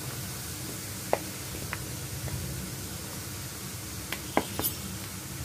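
Batter-coated peanuts deep-frying in hot oil on a medium flame: a steady sizzle as a fresh handful goes into the oil, with a few sharp ticks, the loudest cluster a little past four seconds in.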